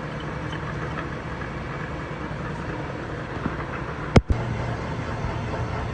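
Steady low hum of machine-shop equipment running, with one sharp knock about four seconds in.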